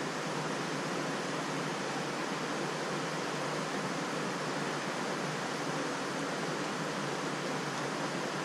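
Steady rushing of river water flowing over rocks, an even noise without breaks.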